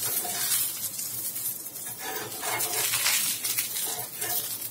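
Oil sizzling on a hot dosa griddle under a frying flatbread, with light scrapes and clinks of a perforated metal spatula against the griddle as the bread is flipped.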